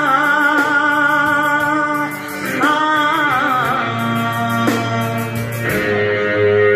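A woman singing through a microphone, with a wavering vibrato on long held notes, over a steady instrumental backing.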